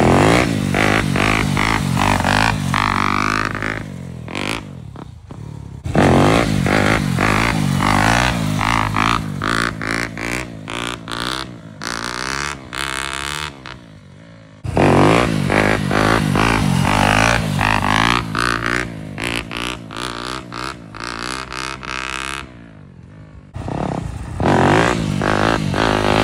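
Dirt bike engine revving up and falling back again and again as the throttle is worked to lift and hold wheelies, its pitch rising and wavering. It comes in several separate runs, each starting suddenly.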